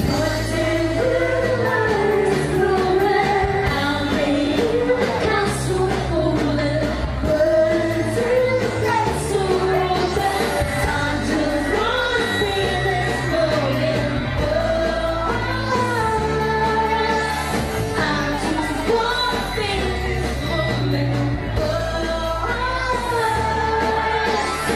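Live pop band performing a song: singers over electric guitars, keyboard, bass and drums.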